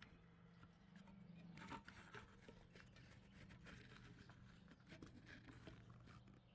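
Near silence: a faint steady low hum with scattered soft ticks and rustles.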